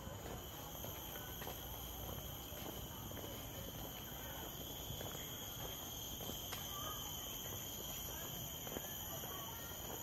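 Steady chorus of insects in tropical garden vegetation: a continuous high-pitched buzz at several pitches at once, with faint scattered ticks and a few soft chirps.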